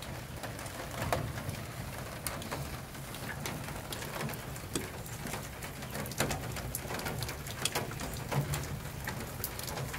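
Light rain falling, with scattered drips and small ticks and clicks over a low steady drone; some of the clicks are wires and the cable being handled in a plastic junction box.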